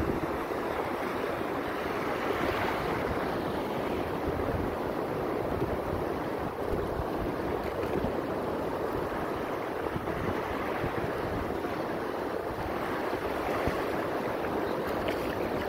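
Shallow surf of small waves washing up over flat wet sand and drawing back, a steady wash that swells and eases. Wind buffets the microphone underneath.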